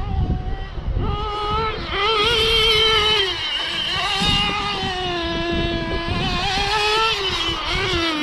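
Small nitro (glow-fuel) engine of a Kyosho Inferno GT2 RC car running, a high buzzing note whose pitch rises and falls as the throttle changes.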